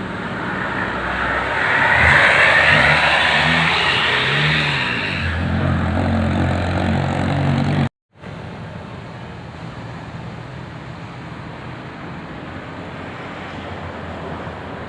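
A bus passing close by, its engine note rising and falling over tyre and road noise, loudest about two seconds in. Shortly before halfway the sound drops out abruptly, then quieter, steady traffic noise follows.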